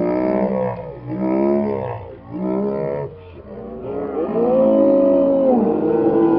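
Drawn-out voices rising and falling in pitch: three calls of about a second each, then from about four seconds in long held tones at two pitches overlapping.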